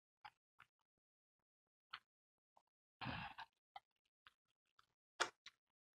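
Close, quiet mouth sounds of someone chewing fried chicken: scattered short wet clicks and lip smacks. About three seconds in there is a brief breathy rush, and the sharpest smack comes a little after five seconds.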